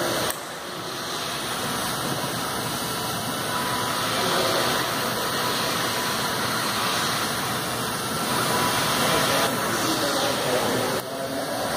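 Steady whirring of small electric RC J3 Cub model planes' motors and propellers in flight.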